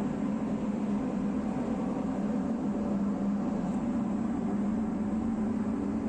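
Steady low mechanical hum, an even drone with no change in pitch or level.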